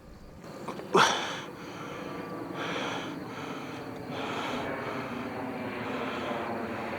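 A sharp click or knock about a second in, then the steady rushing noise of a distant jet airliner's engines.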